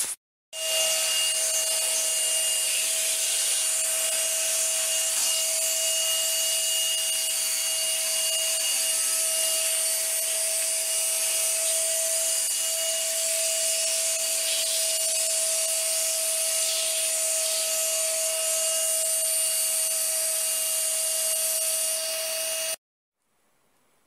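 Vacuum cleaner running steadily with a constant whine. It starts abruptly about half a second in and cuts off suddenly near the end.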